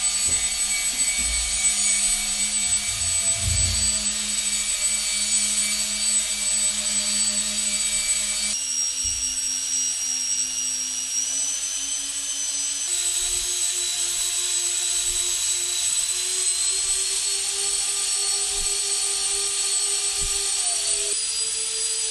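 Twin electric ducted fans on the hub of a scratch-built balsa tip-jet helicopter, running at speed and spinning the rotor: a steady high whine that steps up in pitch a few times. The rotor turns slower than intended, which the builder takes as a sign the fans need spacing further out for more torque.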